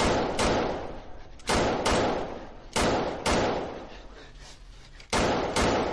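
A series of loud bangs, like heavy slams or blows. They come in four pairs about half a second apart, and each one dies away quickly.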